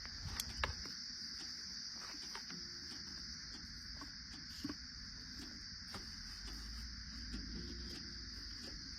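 Steady high-pitched chirring of crickets or similar insects, with a few faint clicks and a low, faint rumble underneath.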